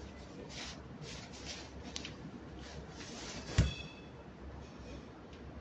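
Umbrella canopy fabric rustling softly as it is spread by hand, then one sharp snap about three and a half seconds in as the golf umbrella is pushed fully open, with a brief metallic ring after it.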